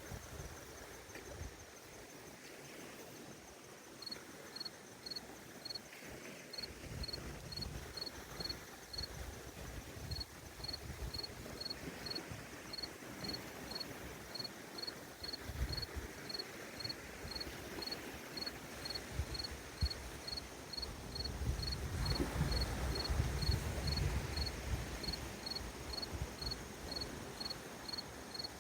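A cricket chirping steadily, about two short high chirps a second, over the soft low wash of gentle lake waves that swells about two-thirds of the way through.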